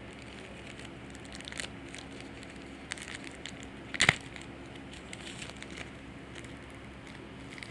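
Foil Yu-Gi-Oh booster pack wrapper crinkling and crackling as it is worked open, with a sharp crackle about four seconds in.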